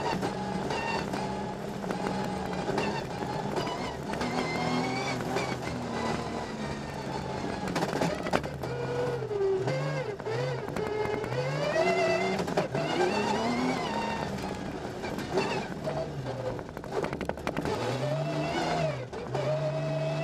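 Rally car engine heard from inside the cabin, revving up and dropping back again and again as it is driven hard through the gears.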